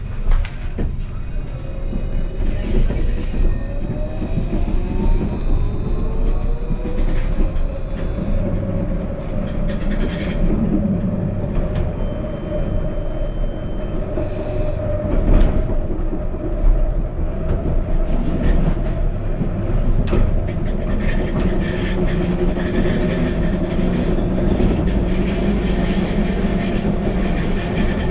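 Alstom Citadis tram heard from inside the car: its electric traction motors whine, rising in pitch over the first six or so seconds as it gathers speed, then holding steady, over a constant rumble of wheels on rail, with a few sharp clacks over the track.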